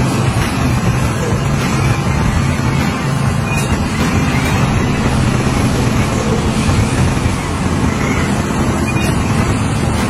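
Heavy diesel engine of construction machinery running steadily under load, a low, even rumble.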